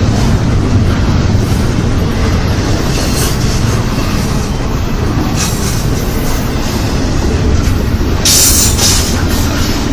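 Intermodal freight train rolling past: a steady, loud rumble of wheels on rail, with a few short high hissing bursts, the loudest one near the end.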